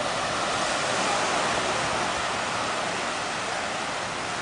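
Small waves breaking and washing onto a sandy beach: a steady rush of surf that swells slightly about a second in.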